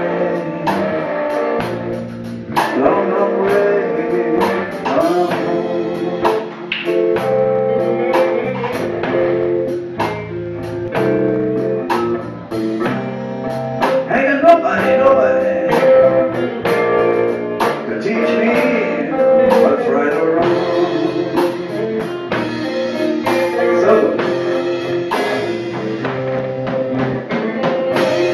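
Live blues band playing, with electric guitars, electric bass and a drum kit.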